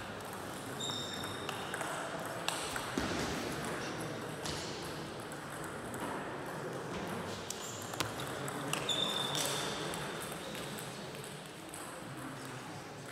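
Table tennis rally: the ball clicking sharply off paddles and the table at an irregular pace, over the clatter of play at other tables in the hall. Twice a short high squeak, from shoes on the wooden floor.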